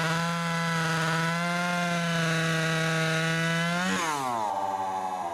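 Stihl 020 AV Super two-stroke chainsaw with Oregon 91VXL semi-chisel chain cutting through a log at a steady, loaded engine note. About four seconds in it breaks through, revs up briefly and then falls away toward idle as the throttle is let off.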